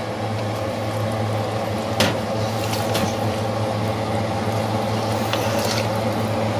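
A pot of soup boiling and bubbling while it is stirred with a silicone spatula, with a couple of sharp knocks about two and three seconds in, over a steady low hum.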